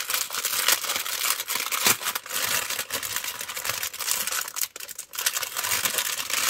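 Clear plastic packets of round diamond-painting drills crinkling and rustling as they are handled and unrolled, with many small crackles throughout.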